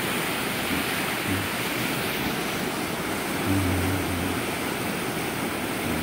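A fast-flowing river rushing over shallow rapids makes a steady, even hiss. About three and a half seconds in, a brief low hum rises slightly above it.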